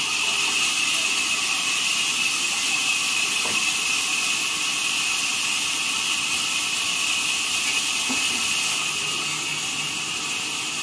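Sawmill band saw running without cutting, giving a steady high-pitched hiss, with a couple of faint knocks from the log being handled.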